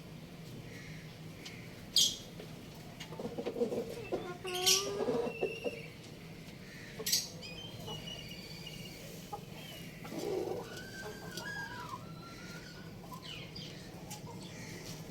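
Young chickens clucking and chirping in scattered calls, with a few sharp clicks among them.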